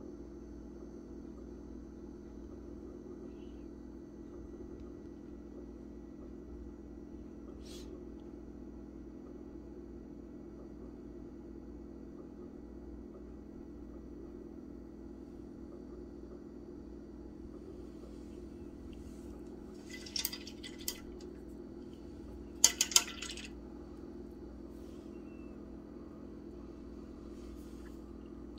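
Steady low room hum, broken about two-thirds through by two short clusters of small clinks, the second louder.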